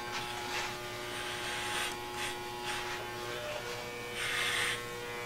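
Electric hair clippers buzzing steadily while cutting a fade at the side of the head. The sound swells in several short passes as the blades run through the hair, the loudest about four seconds in.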